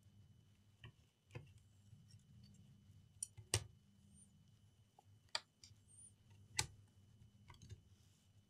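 Faint, scattered clicks and taps of small laptop parts being handled and seated on the motherboard, about seven in all, the loudest a little over three and a half seconds in, over a faint low hum.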